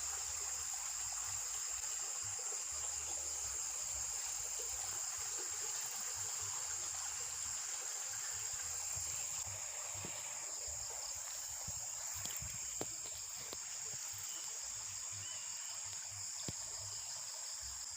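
Steady, high-pitched chorus of insects such as crickets, over a soft even hiss, with a few faint clicks in the second half.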